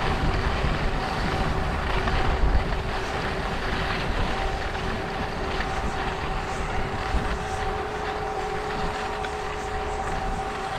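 Wind buffeting the microphone, a steady rumble, with a faint steady hum underneath.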